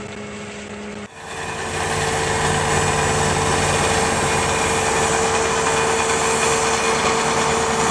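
Sidewalk tractor's engine and front snow blower running while throwing snow: a steady rushing noise with a steady whine over it. It starts suddenly about a second in.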